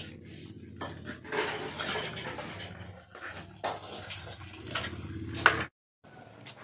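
Sharp cracks and clicks of a cooked crab's shell being broken apart by hand, the loudest snap about five and a half seconds in, over a steady low hum. The sound cuts off abruptly near the end.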